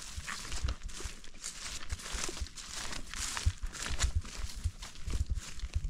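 Footsteps crunching and rustling through dry leaf litter and dead brush, with irregular low thumps from the footfalls.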